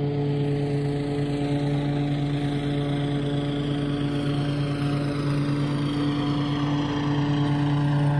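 Engine of an Exmark self-propelled walk-behind mower running steadily while mowing across a slope, getting louder near the end as it comes closer.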